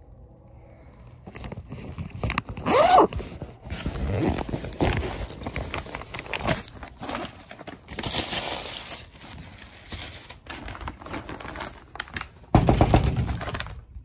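Handling noise: a soft bag being rummaged and a paper-wrapped sandwich crinkling as it is pulled out, with repeated knocks and bumps against the phone's microphone and a louder burst near the end.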